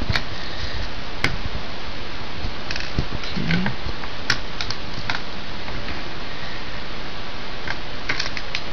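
Small screwdriver turning a screw out of a laptop LCD panel's metal side bracket: a few scattered sharp clicks, bunched together near the end, over a steady hiss.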